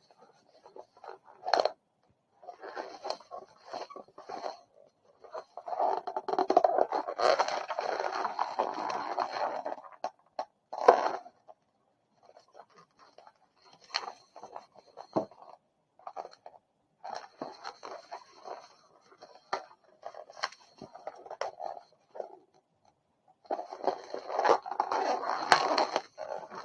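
Long latex twisting balloon squeaking and rubbing as it is twisted, folded and locked into shape by hand, in irregular stretches with short pauses and a few sharp clicks.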